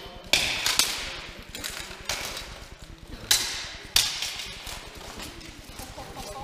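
Steel longswords clashing and striking plate armour in a full-contact armoured duel: a string of sharp metallic clangs at irregular intervals, each with a short ringing tail. The loudest come about a third of a second, three seconds and four seconds in.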